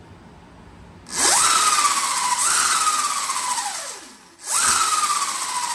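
E&C EC4P brushless motor on a FarDriver ND72530 controller spinning the Razor SX500's chain-driven rear wheel off the ground: three throttle blips, each a whine that rises sharply and then falls slowly as the wheel coasts down, over a loud hiss. This is the first throttle test after the controller install.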